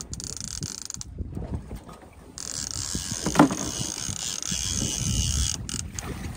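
Fishing reel being cranked fast, a steady whirring ratchet of its gears, as a hooked walleye is wound in to the boat; the reeling stops briefly about a second in and again near the end. A single sharp knock about three seconds in.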